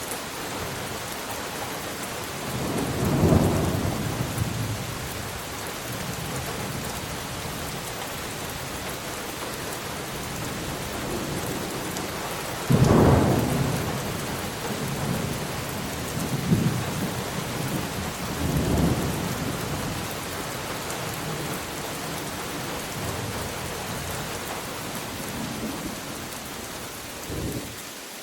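Steady rain falling, with rolls of thunder: one rumble about three seconds in, a sudden loud clap just before halfway that rumbles on for a few seconds, then smaller rumbles, the last near the end.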